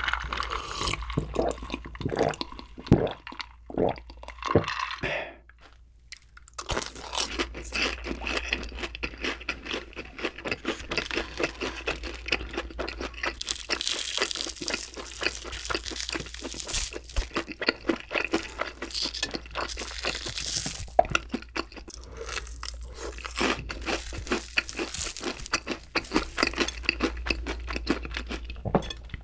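Several gulps of a drink from a glass, then a breaded, deep-fried pork cutlet being broken into pieces, its crisp breading crackling and crunching continuously.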